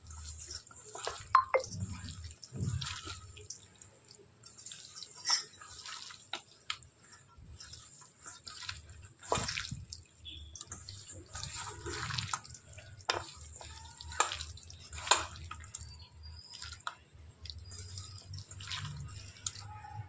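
Bare hands squelching raw chicken pieces in a thick, wet spice marinade in a stainless steel bowl: irregular wet squishes and smacks as the meat is turned and rubbed.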